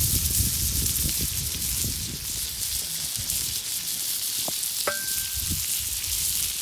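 Beef steak sizzling and crackling as it fries, with a brief high ringing tone about five seconds in.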